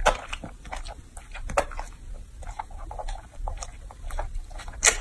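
A young macaque chewing and biting juicy peeled fruit, with irregular wet smacking and clicking mouth sounds, the sharpest near the start, about a second and a half in, and just before the end.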